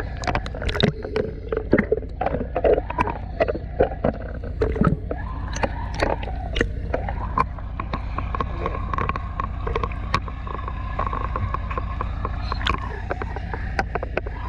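Underwater sound on a scuba dive: a steady low rumble with dense crackling clicks throughout and faint wavering tones.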